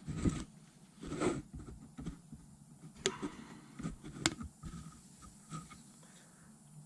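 Light clicks and scrapes of a pocket screwdriver working a rubber seal into its groove inside a hydraulic cab-latch cylinder: a few separate sharp ticks, the sharpest about three and four seconds in.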